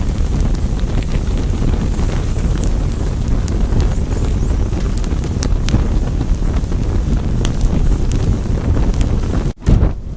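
Fire burning with a steady low rush and scattered sharp crackles. About nine and a half seconds in the sound drops out for an instant and resumes with fewer crackles.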